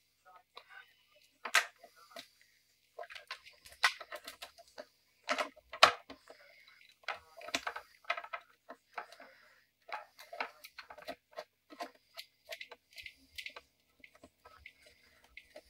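Cables and plastic parts being handled in a plastic electrical enclosure while an Ethernet cable is fed through its cable gland: irregular small clicks, taps and rattles, with a sharper knock about six seconds in.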